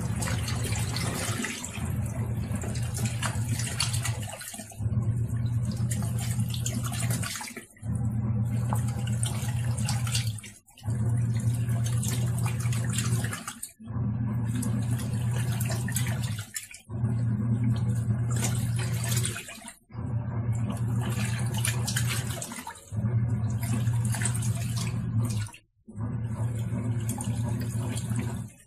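Tangarus Mallorca portable washing machine washing: its motor hums while the water churns in the tub. The motor stops for a moment about every three seconds, as the wash action alternates direction.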